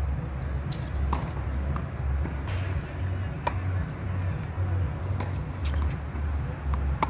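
Tennis ball struck by rackets and bouncing on a hard court during a rally: sharp pops every second or two over a steady low rumble.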